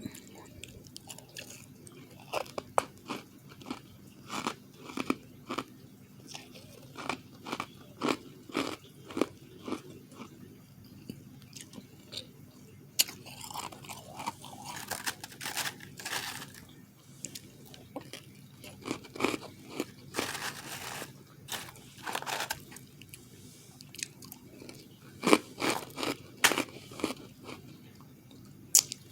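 Close-up chewing of refrozen powdery ice: repeated crisp crunches as it is bitten and chewed, with a few longer grinding crunches about halfway through.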